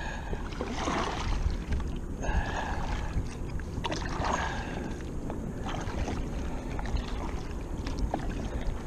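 Water sloshing and lapping against a kayak hull in swells about every second and a half, over a steady low wind rumble on the microphone.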